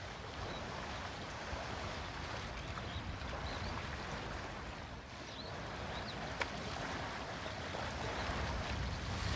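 Water sloshing and splashing as a herd of African elephants wades through a shallow waterhole, a steady even wash of sound. A few faint high chirps come through in the middle.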